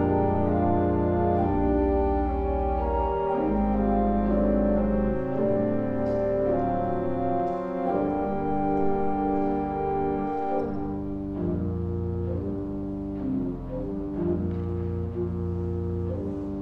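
Organ playing slow, sustained chords over deep bass notes, growing softer after about ten seconds.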